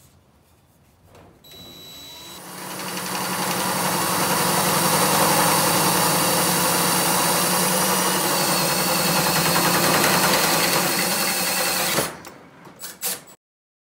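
Cordless drill driving a 1¼-inch hole saw through oiled round steel tube in a tubing notcher. The drill starts about a second and a half in, builds up and cuts steadily for about ten seconds, then stops suddenly, followed by a few short knocks.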